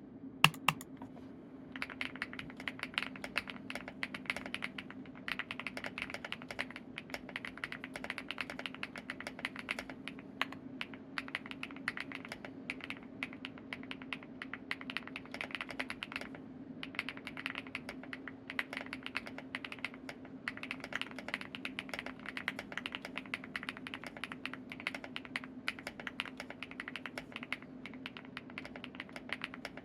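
Continuous typing on a Leobog HI75 mechanical keyboard with stock HMX EVA switches and NovelKeys Cherry Sage keycaps: a dense stream of keystrokes with a few short pauses, starting about two seconds in. Two sharp, louder clicks come first, about half a second in, over a steady low hum.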